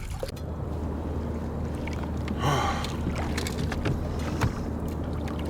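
Small knocks and clicks of handling on a kayak over a steady low hum, with one loud, sharp breath about two and a half seconds in and a sharper knock a couple of seconds later.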